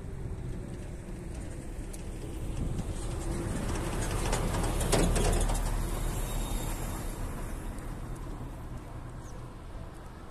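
A road vehicle passing close by: its engine and tyre noise grow louder to a peak about halfway through, then fade away.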